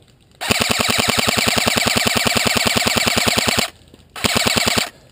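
Airsoft rifle firing on full auto, close by: a long burst of about three seconds, a brief pause, then a short burst of under a second, each a fast even rattle of shots.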